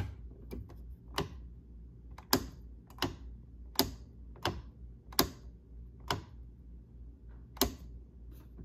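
A series of sharp clicks, roughly one a second at uneven spacing, over a faint steady low hum.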